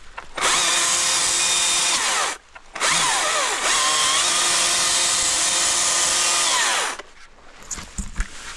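Husqvarna 542i XP battery chainsaw running at full speed in two bursts, about two seconds and then about four seconds, its motor whine sagging in pitch and recovering as the chain bites into branches. Near the end, brush rustles and snaps.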